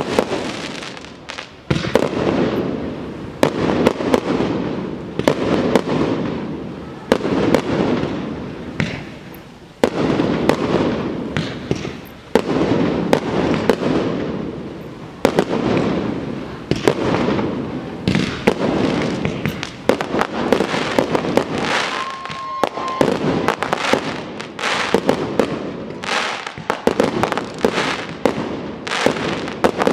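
Fireworks display: aerial shells bursting in quick succession, many sharp bangs over a continuous rolling rumble that swells and fades in waves every couple of seconds.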